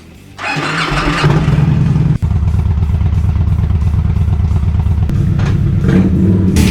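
Victory motorcycle's 106-cubic-inch V-twin engine starting up about half a second in, then running steadily and loudly.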